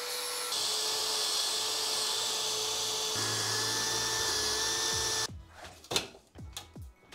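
Angle grinder grinding on the rivets of a motorcycle fender's steel brace, then, about half a second in, a cordless drill running steadily as it drills out the rivets. The drill stops about five seconds in, and a few sharp knocks and clanks follow as the metal fender is handled.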